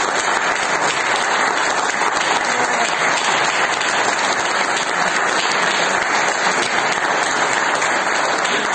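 Concert audience applauding steadily as a song ends.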